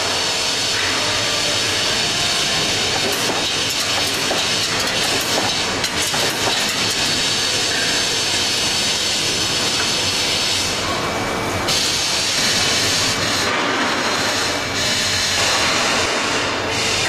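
Steady hissing rush of a CNC lorry-beam punching line running, with a few faint clicks a few seconds in.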